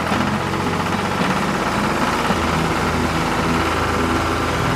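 Tractor engine idling steadily, a recorded engine sound laid over a plastic toy tractor.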